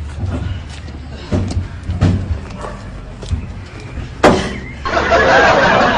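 A series of knocks and thumps, the loudest a sharp bang like a slam about four seconds in, followed near the end by a loud, dense burst of noise.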